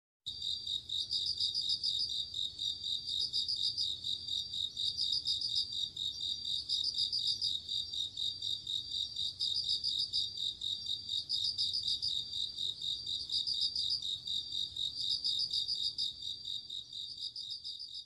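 Crickets chirping in a steady, high-pitched trill, with louder runs of chirps about every two seconds, beginning to fade near the end.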